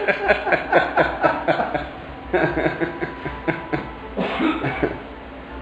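Indistinct voices talking and chuckling, in short runs, fading out near the end.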